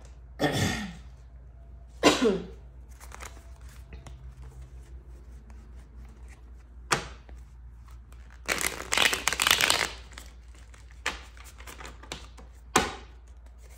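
Tarot cards being shuffled and handled in several short bursts, the longest and loudest a run of rapid card noise from about eight and a half to ten seconds in, with single sharp card clicks in between.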